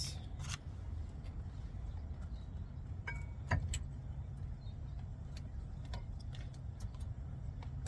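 Metal brake pad being slid into the caliper bracket's abutment clips, giving a few sharp metallic clicks, the loudest about three and a half seconds in. A steady low rumble runs underneath.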